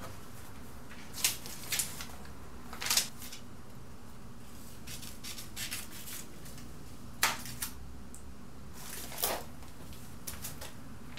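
Magazine pages being handled: several short, separate paper rustles over a faint steady low hum.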